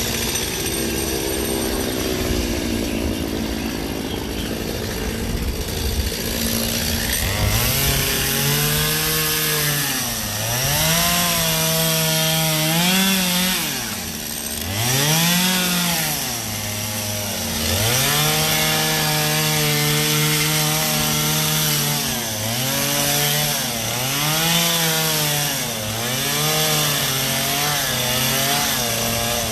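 Gas chainsaw carving ice. Its engine is throttled up and back down again and again, with rising and falling pitch from about a quarter of the way in.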